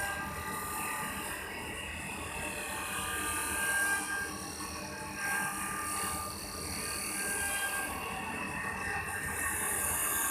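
CNC wood lathe running: a steady mechanical whir with several high whining tones that rise and fade in strength, over a hiss.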